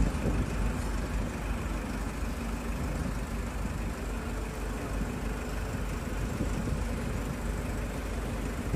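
Diesel engine of a Hydra mobile crane running steadily at a low, even pitch.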